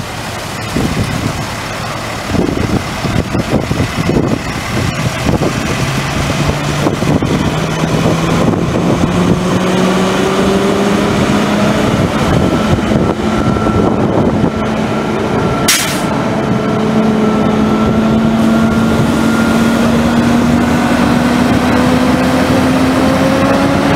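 Fire engine's engine and pump drafting water from a portable dump tank through a hard suction hose and feeding a hose line, with the throttle brought up slowly so the pitch climbs steadily over about twenty seconds. Water rushes throughout, and there is one sharp click about two-thirds of the way through.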